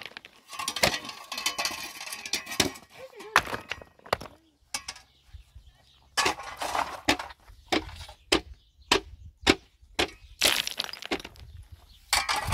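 A series of irregular sharp cracks and knocks, a dozen or so, some bunched close together and others spaced a second or more apart.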